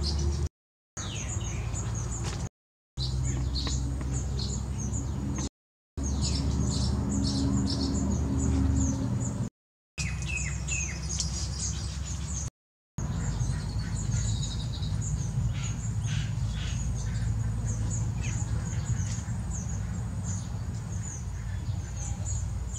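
Several birds chirping and calling in quick, short, high notes over a low hum. The sound drops out to dead silence five times, briefly each time.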